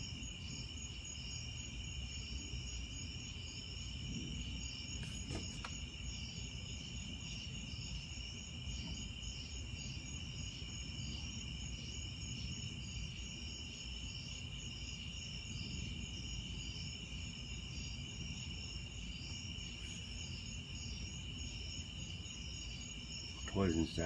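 Night insect chorus of crickets trilling steadily at two high pitches, the higher one pulsing rapidly, over a steady low rumble.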